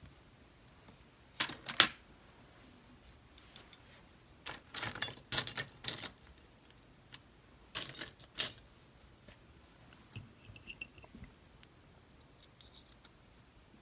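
Small metal clicks and clinks of tweezers pulling springs and pins out of a DOM RS8 lock cylinder, in a few short clusters.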